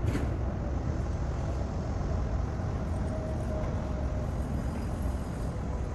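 Heavy diesel engine, most likely the mobile crane's, running steadily with a low rumble. A faint thin whine rises over it for a second or two in the middle.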